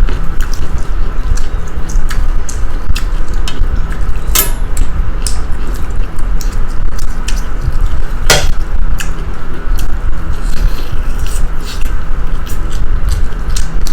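Spoons clinking and scraping on plates during a meal, with wet, squishy eating sounds over a steady low rumble; two sharper clinks come about four and eight seconds in.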